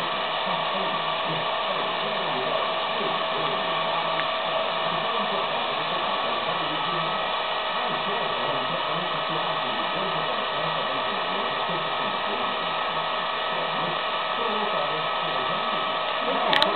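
Hair dryer running steadily: an even rush of blown air with a constant whine from its motor, and a couple of brief clicks near the end.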